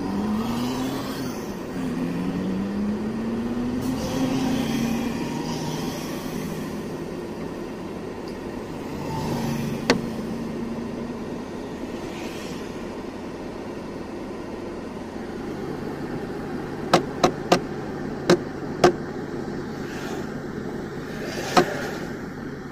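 Diesel engine of a heavy truck heard from inside the cab, rising in pitch twice in the first few seconds as the truck pulls away and accelerates through the gears, then running steadily. A few sharp clicks come about three-quarters of the way through.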